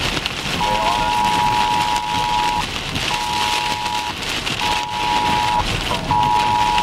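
Heavy rain beating on a moving car, with road and wind noise. Over it an electronic two-note tone beeps in bursts, first long, then two shorter ones, then long again.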